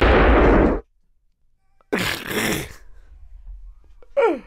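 A man bursting out laughing into a close microphone: a loud blast of breath that cuts off under a second in, then after a pause a wheezing, breathy laugh about two seconds in, and near the end a short laugh squeal sliding down in pitch.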